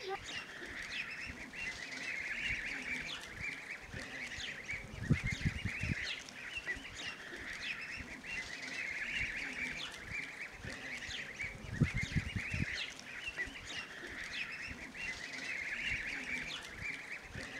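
A flock of young Kars geese peeping and calling without pause, many short high calls overlapping. A few brief low rumbles come through about a third of the way in and again past the middle.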